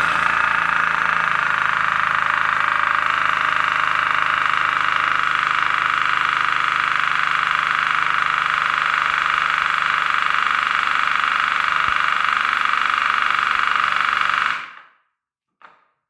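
CO2-powered pneumatic air hammer, fed from a 12 oz paintball CO2 cylinder, running at full throttle with a steady continuous hammering buzz. It runs evenly for about fourteen seconds, then stops.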